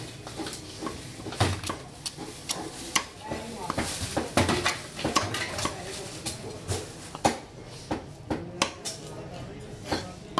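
A curved cleaver knocking and scraping on a wooden chopping block as fish fillets are cut into pieces, in irregular sharp knocks.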